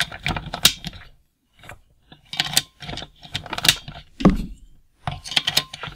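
Hard plastic clicks and knocks as toy missiles are slid into the rear launcher of a G.I. Joe HAVOC Mark II toy vehicle and pressed down until they snap into place. A string of short sharp clicks, with a heavier knock a little past four seconds in.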